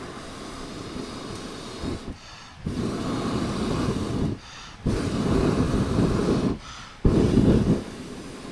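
A person blowing hard into a wood-burning stove to fan the fire: three long, forceful blows with short breaks for breath, the last the loudest.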